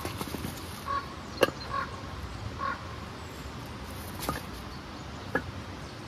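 Split firewood pieces knocking against each other and the rock as they are handled and set down: a few sharp wooden clacks, the loudest about a second and a half in.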